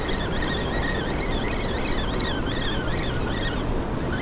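Spinning reel whirring as it is cranked to bring in a hooked fish, its whine rising and falling about twice a second with the turns of the handle. Under it runs the steady rush of fast water pouring through a dam's open spill gates.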